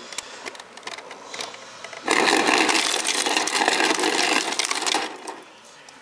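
Refrigerator door ice dispenser running in crushed-ice mode for about three seconds, its motor whirring as crushed ice clatters into a stainless steel bowl. A few light clicks of ice in the bowl come before it.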